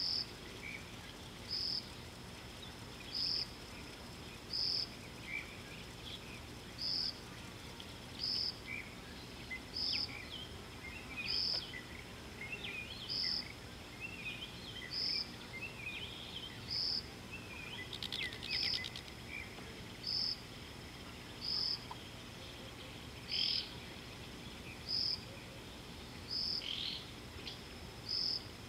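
Natural bush ambience: a short, high chirp repeats at an even pace about every second and a half over a faint steady background. Scattered bird twitters run beneath it, with a brief rattle about two-thirds of the way in.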